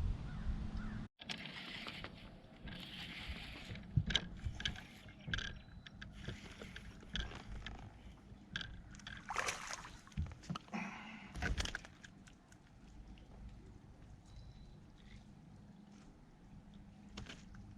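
Water splashing and sloshing at the side of a small fishing boat, with scattered sharp knocks and clicks, busiest in the first two-thirds and settling down near the end.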